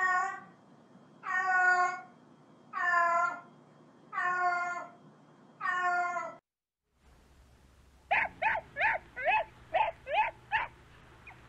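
A cat meowing five times, each meow long and even, about a second and a half apart. After a short break, a dog gives about eight quick, high yips in under three seconds.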